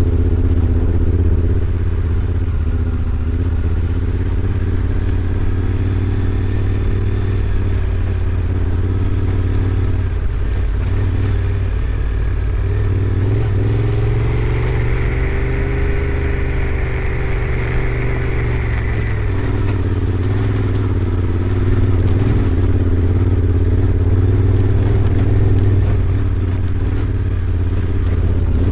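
Honda Africa Twin 1100's parallel-twin engine running while riding at low, fairly steady revs. The engine speed dips and picks up again a few times in the middle, and a high hiss joins it for several seconds.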